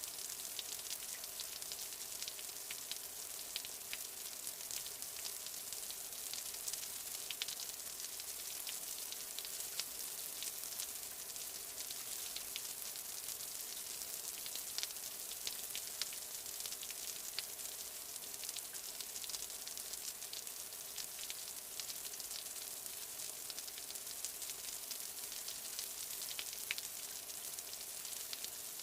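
Light rain falling: a steady high hiss sprinkled with many small, quick ticks of individual drops.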